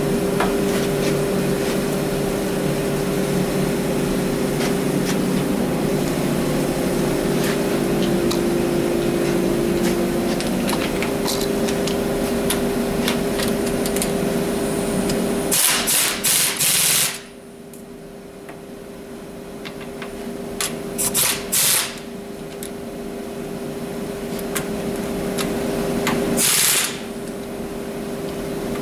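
Pneumatic impact wrench hammering on a tie rod end nut in short bursts: a run of bursts about halfway through, a shorter one around three-quarters of the way, and a brief one near the end. A steady machine hum lies under it, louder in the first half.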